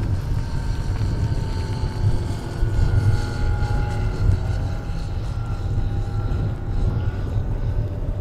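Engine and propeller of a radio-controlled scale model Dewoitine D.26 in flight overhead: a droning tone that wavers slowly in pitch, over a steady low rumble.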